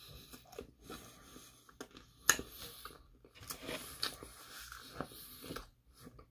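A person biting into a slice of pizza and chewing it quietly: scattered soft mouth clicks, with one sharper click a little over two seconds in.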